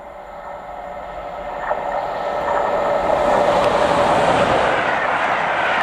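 Class 86 electric locomotive 86259 approaching at speed and passing close by at the head of its train. A steady hum with several held tones grows louder as it nears, then gives way to the rush of wheels on rail as the coaches go past.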